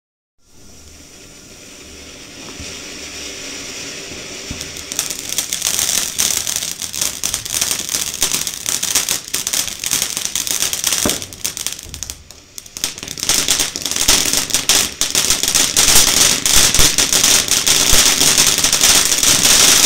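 "Face Off" ground fountain firework spraying sparks: a hiss thick with rapid crackles. It builds over the first few seconds, dips briefly past the middle, then surges back louder.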